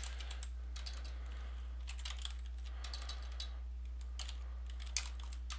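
Typing on a computer keyboard: irregular keystroke clicks, with one sharper click about five seconds in, over a steady low electrical hum.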